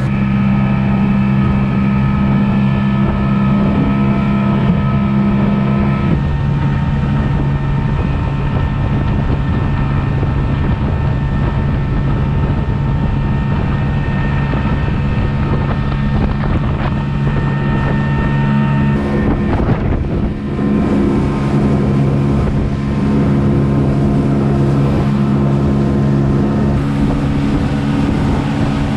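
Outboard motor of a small open boat running at full speed: a steady engine drone over rushing water, with wind buffeting the microphone. The engine note shifts about six seconds in and dips briefly around twenty seconds in before it picks up again.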